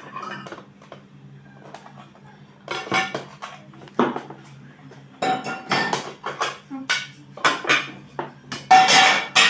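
Kitchen utensils and dishes clattering: a string of irregular clinks and knocks as waffles are lifted out of the waffle maker and plates are handled, over a low steady hum.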